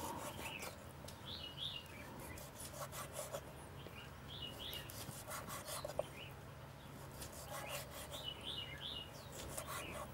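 A large kitchen knife slicing through singed pork and tapping on a wooden chopping board: quiet scattered cuts, with a sharper tap about six seconds in. Small birds chirp in three short bursts.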